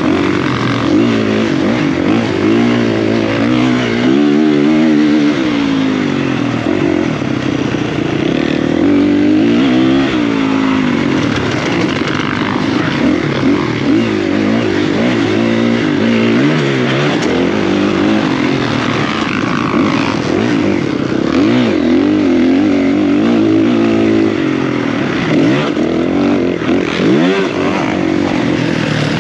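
Dirt bike engine, heard from a camera mounted on the bike, revving up and falling back over and over as it is ridden around a motocross track, its pitch rising on the throttle and dropping off into turns and jumps.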